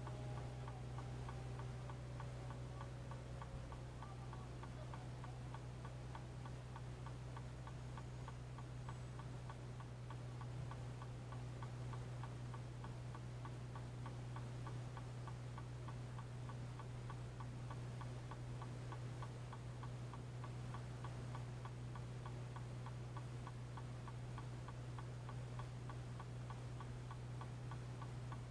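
Vehicle turn-signal/hazard flasher clicking at an even, quick rate, about two to three clicks a second, over a steady low hum.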